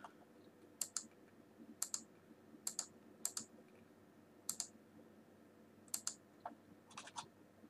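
Computer mouse button clicking, a dozen or so short, sharp clicks at irregular intervals of roughly a second.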